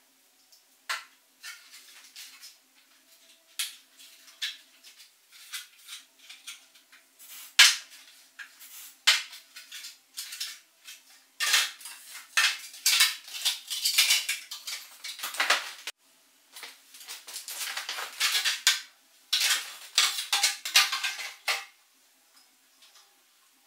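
Light 3D-printed plastic wing parts being handled on a tabletop: scattered clicks and knocks, then longer stretches of clattering and scraping about halfway through and again near the end.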